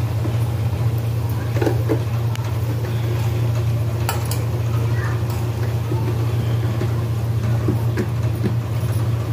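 A steady low hum, with a metal ladle scraping and clinking against a metal kadhai now and then as sliced spiny gourd (kantoli) is stirred.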